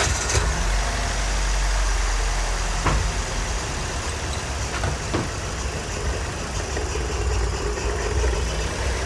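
A 2005 Scion xB's 1.5-litre four-cylinder engine idling just after being restarted, with a steady low drone and a few sharp ticks about three and five seconds in. It is still misfiring, from a failing ignition coil pack that has just been moved from cylinder 2 to cylinder 1.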